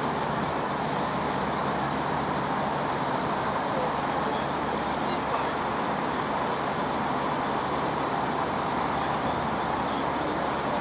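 CH-77 Ranabot light helicopter idling on the ground before takeoff, a steady engine and rotor drone that neither rises nor falls.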